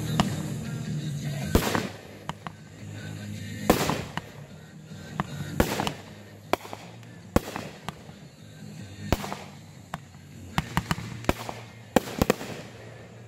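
Aerial fireworks bursting overhead, a sharp bang every one to two seconds, with several bangs in quick succession near the end.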